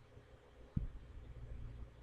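Low rumbling background noise with a single dull thump a little under a second in.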